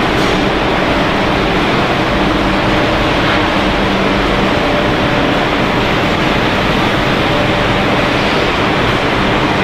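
Continuous snack-frying production line running: a loud, even machinery drone with a few faint steady hum tones underneath.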